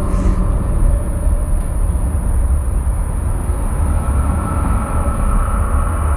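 Wind rumbling on a phone microphone: a loud, steady low rumble that flutters constantly, with a faint high hiss above it.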